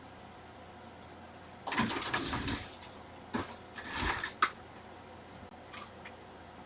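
Handling noise at a repair bench: two short bursts of rustling, likely the replacement charging port being handled in its packaging, with a few light clicks.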